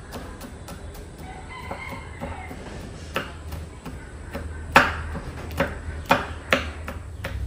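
Kitchen knife chopping garlic and chilies on a wooden cutting board: light taps, then a run of sharper knocks in the second half. A rooster crows about a second in, quieter than the chopping.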